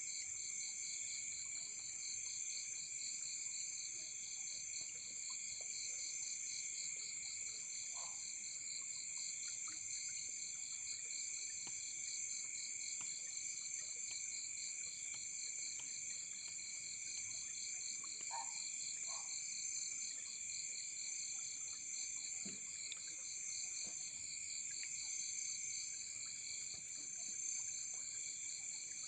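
Night chorus of crickets and other insects: several steady high-pitched trills, one pulsing rapidly and evenly, with a few brief lower calls scattered through.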